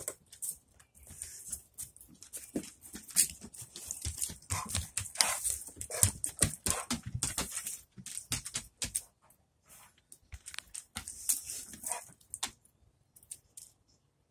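Dogs sniffing and moving about: a dense run of short, irregular noises that dies away about twelve and a half seconds in.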